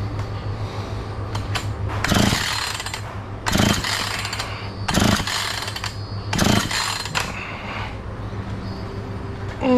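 Husqvarna 445 two-stroke chainsaw being pull-started, with four pulls of the starter cord about a second and a half apart and no sign of the engine catching. A brief sound falling in pitch comes at the very end. The engine will not start while its carburettor mixture is being adjusted; the owner finds it running too lean.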